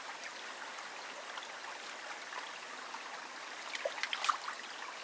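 Shallow stream running over a gravel bed, a steady rushing trickle. About four seconds in, a brief cluster of louder watery blips and clicks rises above it.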